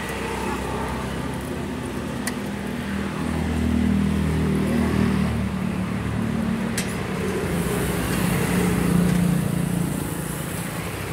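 Road traffic: motor vehicles passing, with engine noise swelling twice, plus a few short sharp clicks.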